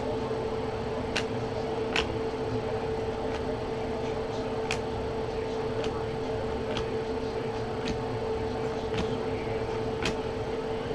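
Topps Chrome baseball cards being slid and flipped one at a time through a hand-held stack, giving small sharp clicks every half-second to a second, over a steady background hum.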